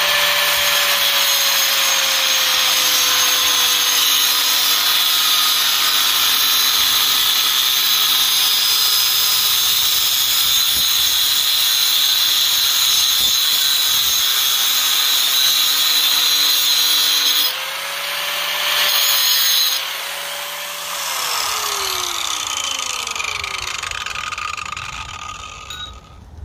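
Corded angle grinder cutting through a steel seat-frame strut: a loud, steady grinding with a motor whine that sags slightly under load. About two-thirds through, the sound changes as the disc comes off the cut and back briefly. The grinder is then switched off and spins down with a falling whine.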